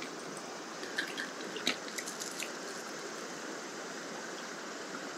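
Steady rush of a shallow mountain stream flowing over rocks, with a few small clicks and splashes between about one and two and a half seconds in.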